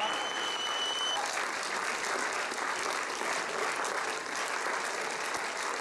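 Large crowd applauding steadily, with one held high whistle in the first second.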